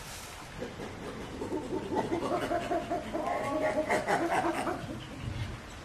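Chimpanzee giving a run of rapid, rhythmic panting calls that grow louder and slightly higher, then break off near the end.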